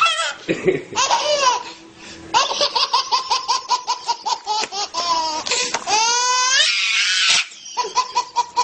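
Baby belly-laughing in quick, high-pitched 'ha-ha-ha' bursts, about six a second, with a brief pause near two seconds in and a rising squeal about six seconds in.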